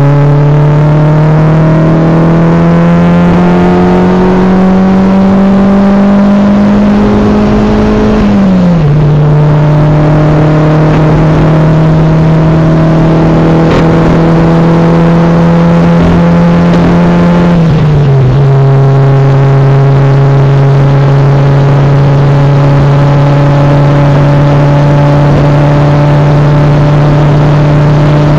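Opel Astra F engine under hard acceleration at 0.8 bar of boost, heard from inside the cabin. The engine note climbs steadily, drops sharply with an upshift about eight seconds in and again about eighteen seconds in, then runs steady.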